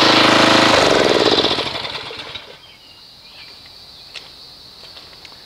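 Pressure washer running loudly, then switched off about a second in: its motor spins down, falling in pitch, and stops within about a second and a half. A few faint ticks follow.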